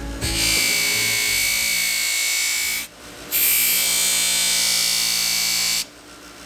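Steel knife blade pressed against a spinning bench buffer wheel, giving a high, hissing grind with a steady whine in it. It comes in two passes of about two and a half seconds each, breaking off briefly about three seconds in as the blade is lifted and reset, and stopping again near the end.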